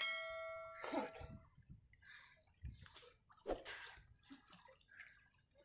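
A ringing chime of several steady tones fades out over about the first second and a half. After it comes soft splashing and sloshing of river water as a man wades and swims chest-deep, with a couple of sharper splashes in the middle.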